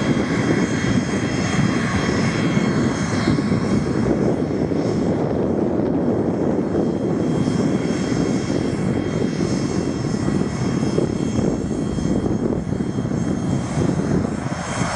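Pilatus PC-24 business jet taxiing, its two Williams FJ44-4A turbofan engines running at low taxi power: a steady rumble with a high-pitched whine on top.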